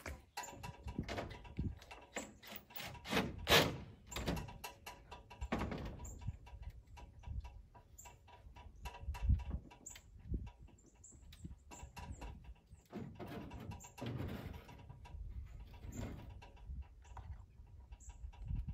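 Irregular knocks, clanks and thumps of a man climbing an aluminium extension ladder leaned against corrugated metal barn siding and handling the mounted saw decoration, the loudest knock about three and a half seconds in. Faint bird chirps come and go.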